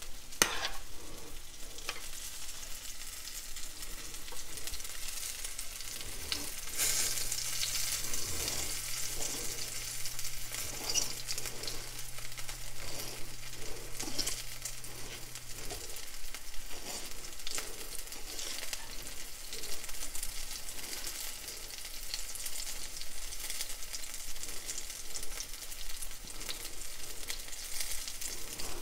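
Potato samosa patties frying in hot ghee and olive oil in a frying pan: a steady sizzle with scattered small crackles.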